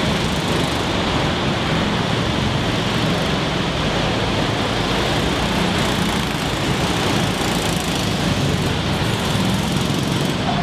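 Go-kart engines running steadily as several karts drive laps around an indoor track.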